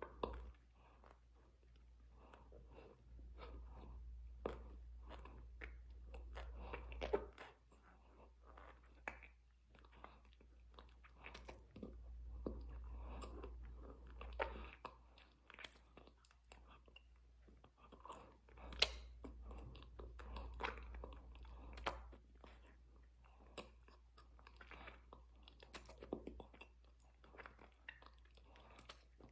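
A big spoonful of frozen rum punch chewed and crunched close to the microphone: many short, irregular icy crunches.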